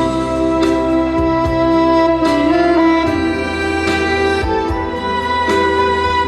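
Instrumental introduction of a Korean trot song, a backing track played over a PA, with a violin-like string melody over steady bass and percussion.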